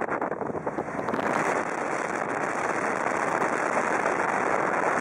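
A car on the move: steady road and wind noise, which grows a little louder and hissier about a second in.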